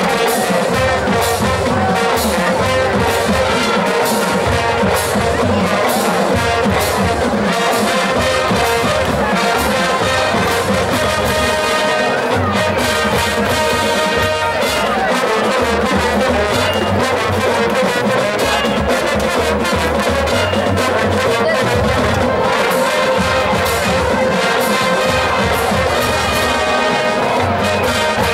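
Marching band playing full out: trumpets and sousaphones carrying the tune over a drumline of snare, tenor and bass drums beating a steady pulse.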